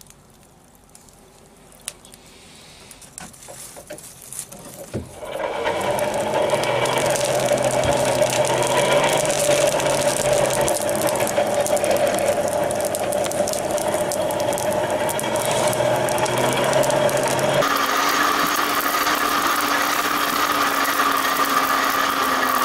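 A forge blower starts up about five seconds in and runs steadily, blowing air into the coal fire. Its pitch steps up abruptly about three quarters of the way through. Before it starts there are only a few light clicks as the blade is set into the coals.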